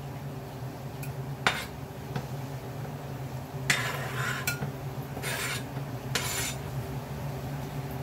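A metal spoon scraping chopped lettuce off a cutting board into a glass bowl: a few sharp taps of spoon on board in the first couple of seconds, then three short scraping strokes. A steady low hum runs underneath.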